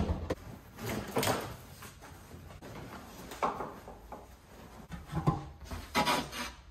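Truck-cab floor carpet and its felt insulation padding being pulled up and dragged out over the bare metal floor: irregular rustling and scraping that comes in several uneven bursts.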